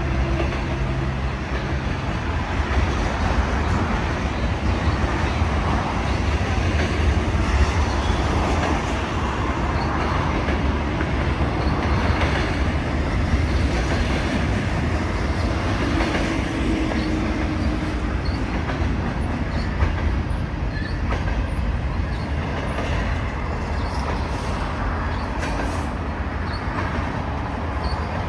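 CN freight train's cars rolling past on the track: a steady rumble of steel wheels on rail.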